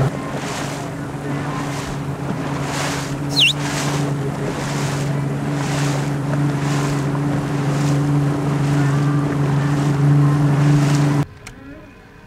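A boat's motor runs steadily while under way, with wind and water rushing past. There is a brief high whistle about three and a half seconds in. About a second before the end the sound cuts to a much quieter scene.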